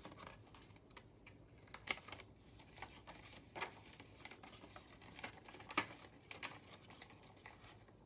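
Paper pages of a handmade journal being turned by hand: faint rustling, with three sharper flicks or snaps of paper at about two, three and a half, and six seconds in.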